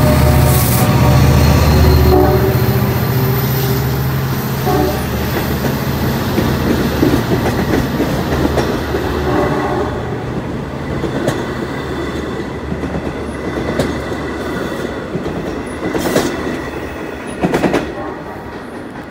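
LIRR DE30AC diesel locomotive passing close with its engine running, then a string of C3 bilevel coaches rolling by: steady wheel noise with sharp clacks over rail joints, fading as the train moves away.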